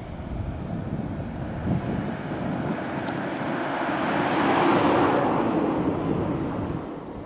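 Single AN8800 diesel railcar, a Niigata Tekkosho light railcar, running past: the noise of its engine and wheels on the rails grows to a peak about two-thirds of the way through, then fades away.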